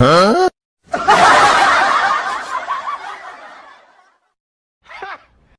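A burst of laughter that fades out over about three seconds. Just before it comes a short rising pitched sound, and near the end a brief faint sound.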